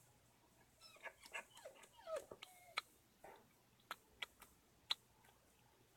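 Faint, soft short calls from a large-billed crow, a run of small rising and falling notes in the first half, followed by four or five sharp separate taps.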